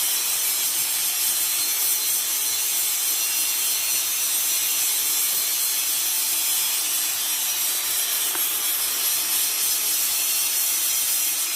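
Electric hand grinder running steadily, giving an even, high-pitched rasping hiss without a break.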